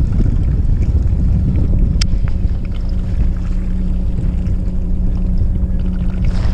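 Fishing boat's engine running steadily, a low drone with a constant hum, with wind buffeting the microphone. One sharp click about two seconds in.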